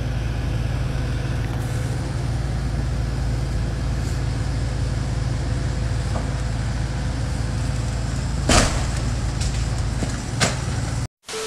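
John Deere 135C excavator's diesel engine running steadily under load. About eight and a half seconds in there is a loud crash as the bucket brings down the brick chimney, followed by two lighter knocks of falling brick.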